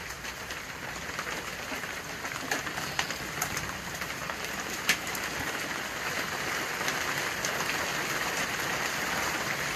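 Heavy thunderstorm rain pouring down in a steady hiss that swells slightly, with a few sharp ticks of drops or hailstones striking a hard surface, the loudest about five seconds in.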